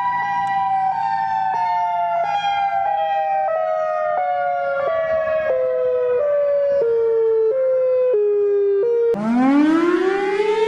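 Outdoor warning siren sounding a two-tone wail that slowly falls in pitch, pulsing about every half second as the rotating horn sweeps past. About 9 s in it cuts abruptly to another siren starting up, its pitch climbing.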